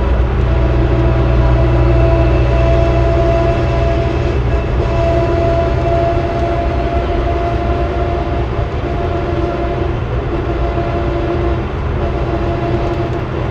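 A 2003 New Flyer D40LF diesel transit bus under way, heard from inside the cabin: a steady engine drone with two high steady whining tones over it. The low rumble eases about three and a half seconds in.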